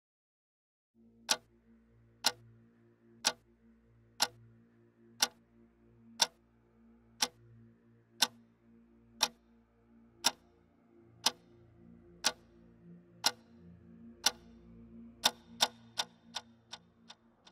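Sharp clock-like ticks about once a second over a faint low held drone, the ticks quickening into a faster run near the end.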